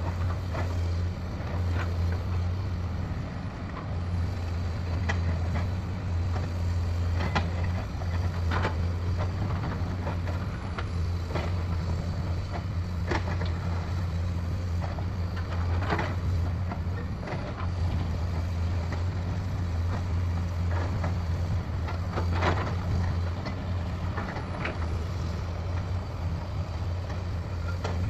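Heavy diesel construction machinery running with a steady low engine drone, with scattered sharp clanks and knocks every second or two.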